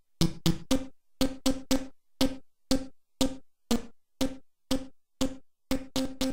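ymVST software synthesizer, an emulation of a 1980s computer sound chip, playing a chiptune preset. Short percussive notes repeat about two to three times a second, each a sharp hit of buzzy tone mixed with noise that dies away quickly, like a drum machine.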